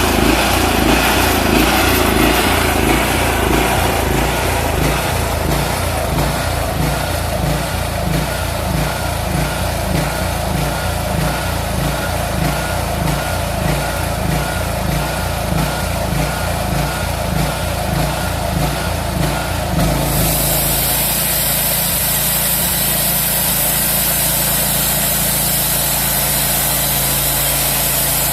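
Small engine of a homemade portable bandsaw mill running with a pulsing beat; about twenty seconds in the sound changes abruptly to a steadier, even running note with a high hiss.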